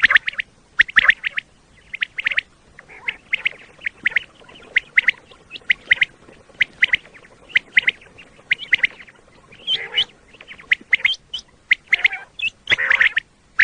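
Common quail calling: short, sharp notes repeated in quick irregular clusters, several each second.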